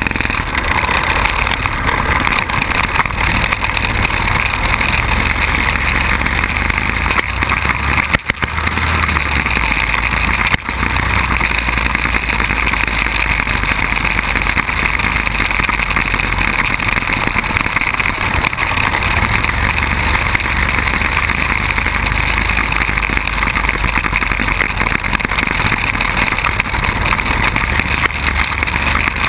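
Quad bike (ATV) engine running steadily under way on a dirt track, heard from a camera mounted on the bike, with two brief knocks about eight and ten seconds in.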